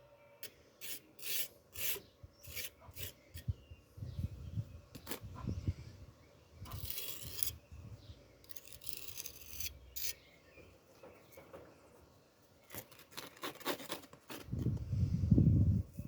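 A hand file or rasp scraping in repeated strokes: quick short strokes at first, two longer drawn strokes in the middle, and a cluster of strokes near the end, with dull low bumps from the work shifting under the tool.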